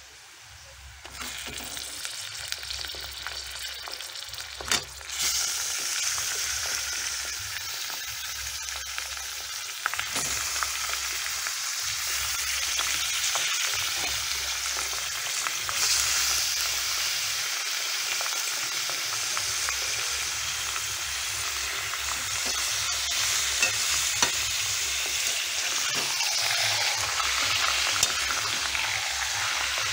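Browned onions and raw chicken pieces frying in hot oil in a karahi: a steady sizzle that starts about a second in and grows louder about five seconds in, with occasional taps and scrapes of a steel spatula stirring.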